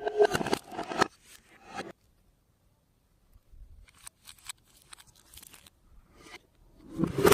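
Clear slime being worked by hand with makeup mixed in, giving crisp crunching, crackling sounds in bursts. The crackling is loud for the first two seconds, turns faint and sparse after a short pause, and comes back loud near the end.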